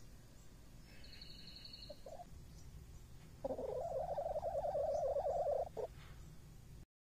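A hen's long, warbling call lasting about two seconds, starting about three and a half seconds in, with a short extra note right after it. Before that there is a faint high whistle of about a second.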